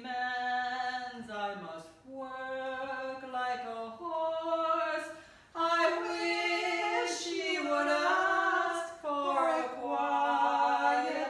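Women's voices singing a cappella: a slow tune in long held notes that slide from pitch to pitch, with short breaks between phrases.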